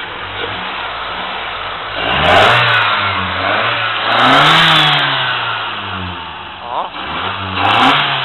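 Toyota 3S four-cylinder engine idling, then revved several times from about two seconds in, its pitch climbing and falling back with each rev.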